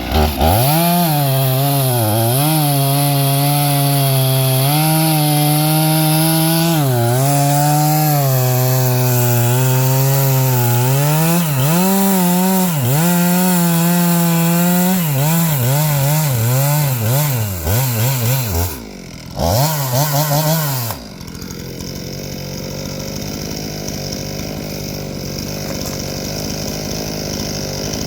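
Skil chainsaw cutting into a tree trunk, its pitch sagging and recovering again and again as the chain bogs down under load. It cuts out briefly about 19 seconds in, runs again for a moment, then stops about 21 seconds in, leaving only a quieter steady background noise.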